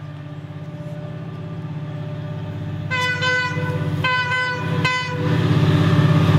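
Diesel locomotive approaching, its engine hum growing steadily louder. From about three seconds in its horn sounds three times: a blast of about a second, a shorter one, then a brief toot.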